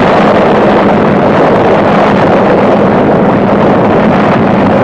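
A steady, loud rumbling roar with no breaks, dubbed onto the film as the sound of an atomic bomb's mushroom cloud boiling upward.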